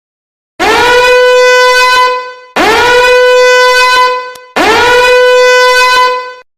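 A horn sound effect blown three times in a row: three identical loud blasts of about two seconds each. Each one scoops up quickly into a steady, buzzy note and then tails off.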